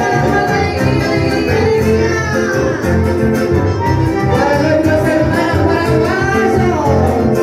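Chamamé played live: a woman singing long, gliding phrases over two accordions, an acoustic guitar and an electric bass.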